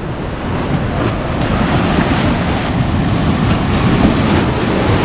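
A set of ocean waves surging through a narrow rocky gully: a continuous loud rush of surf.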